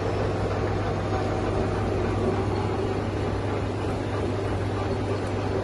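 San Shing lathe running steadily, its motor and spindle giving a constant hum with several steady tones.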